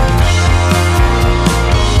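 Loud rock music with a steady drum beat and sustained bass.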